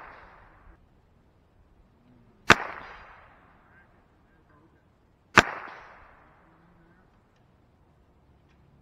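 Two sharp cracks of .22 LR rifle shots from a CZ 457, heard from beside the target downrange, about three seconds apart, each trailing off in a short echo.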